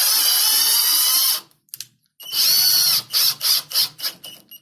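Swazer 14.4-volt cordless drill/driver driving a screw: the motor whines for about a second and a half, stops, runs again with its pitch dipping under load, then finishes in several short trigger bursts.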